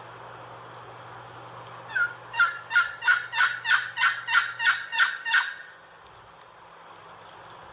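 Turkey yelping: a run of about ten evenly spaced notes, about three a second, lasting a little over three seconds, over a steady hiss of wind and snow.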